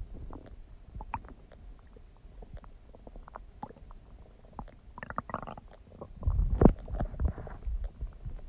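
Human stomach gurgling: irregular small pops and bubbling clicks, building to a longer, louder gurgling rumble from about five seconds in.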